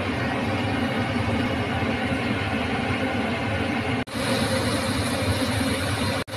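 A steady mechanical drone with a low hum, like a motor running. It drops out for a moment about four seconds in and again just before the end, and is slightly brighter and hissier after the first break.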